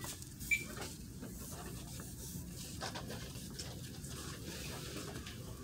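Faint rubbing and handling noise from a phone being moved about while filming, over low store background noise. A brief short high chirp sounds about half a second in.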